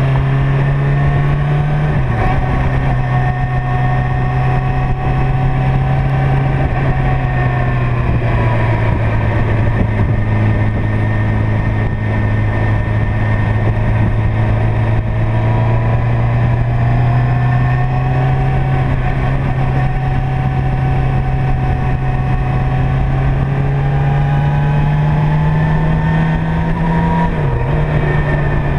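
Motorcycle engine running at cruising speed, heard up close from the riding bike. The engine note drops about two seconds in, climbs slowly, and dips briefly near the end.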